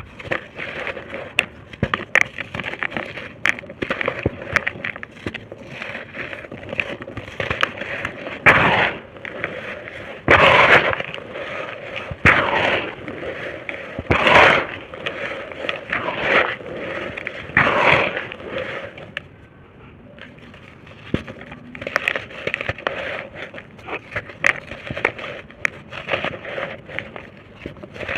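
Dry, molded red-dirt shapes being crushed and crumbled into powder: continual gritty crackling, with louder crunches about every two seconds through the middle.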